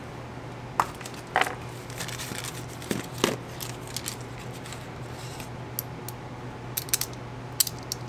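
Scattered light clicks and knocks of small engine parts and hand tools being handled while an oil-pump block-off plate and its gasket are fitted to a Yamaha 650 two-stroke engine, over a steady low hum.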